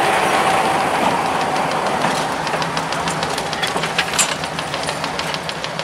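Billard A150D diesel railcar moving off along the track, a steady mechanical rumble. From about two seconds in, a rhythmic clatter of roughly five or six beats a second builds as it draws away, with one sharper click near the middle.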